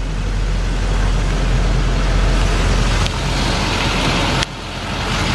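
6.6-litre Duramax V8 turbo-diesel of a Chevy C5500 idling steadily, with a sharp click about four and a half seconds in.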